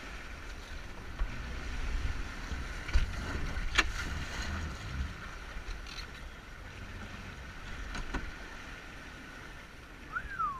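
Jet ski running steadily at speed, a muffled hum mixed with wind and water rush, as picked up through a GoPro housing. A few sharp knocks sound as the hull hits the water, and a short falling chirp comes near the end.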